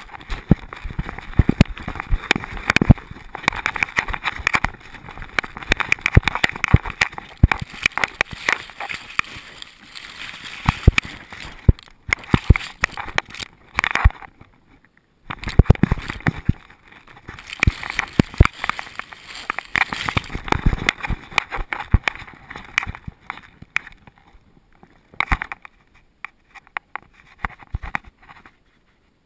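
Rustling, scraping and knocking of a collar-mounted camera against a long-haired dog's fur and chest as she moves about, in dense irregular clicks. There is a brief quiet spell about fifteen seconds in, and it thins out near the end.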